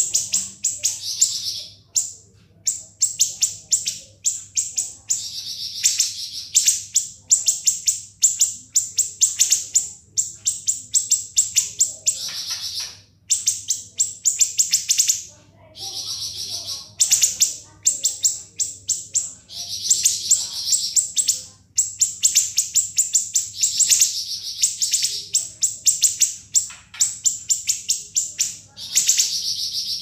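Siri-siri songbird singing its shrill, rapid-fire 'ngebren' song. Long volleys of sharp, tightly packed high chirps come in phrases of a second or two, separated by brief pauses.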